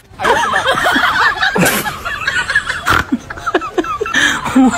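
A man laughing, mixed with a toddler's high voice.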